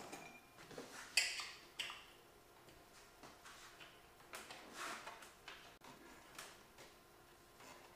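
Hands working plastic intake piping and hoses into place in a car's engine bay, with the engine off: scattered clicks, knocks and brief rubbing scrapes, the loudest a sharp scrape about a second in.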